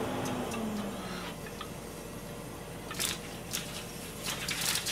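Thin raw pork-belly slices being peeled apart and laid by hand into a frying pan, with soft wet, squishy slaps. In the second half come a few short, sharp clicks and knocks of handling.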